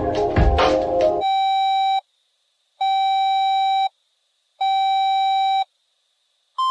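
Fan-made Emergency Alert System alarm sequence: the last second of a musical jingle with a few sharp hits, then three electronic beeps at one pitch, each about a second long with short silent gaps, and a higher-pitched beep starting near the end.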